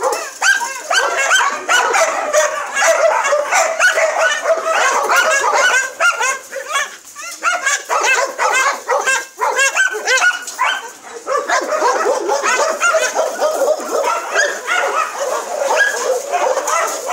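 A pack of dogs barking and yipping over one another almost without pause as they play.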